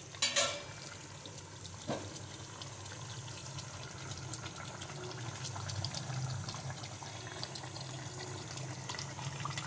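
Fish curry simmering in a steel pan, the gravy bubbling and popping with many small ticks over a steady low hiss and hum. A sharp metal clink comes about half a second in, and a steel spatula moves through the gravy against the pan.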